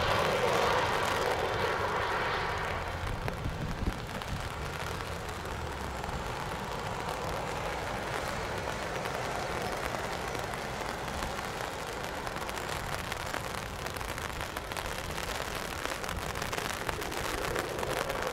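Jet engines of a Boeing 787-9 airliner running as it rolls out after landing, their noise fading over the first three seconds into a steady, even rushing sound.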